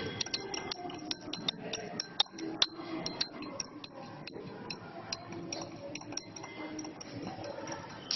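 Glass stirring rod clinking against the inside of a small glass beaker as a solution is stirred: quick, irregular light clinks, some ringing briefly.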